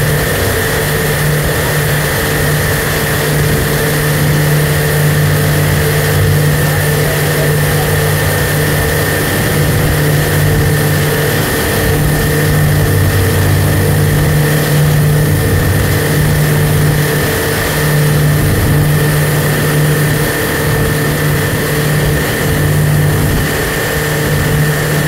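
Boat engine running steadily as the boat cruises, a constant low drone over rushing wind and water noise.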